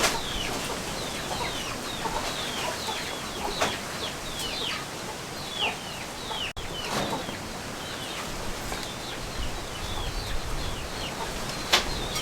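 Birds calling: many short chirps, each falling in pitch, over a steady hiss, with a few sharp knocks, the loudest near the end.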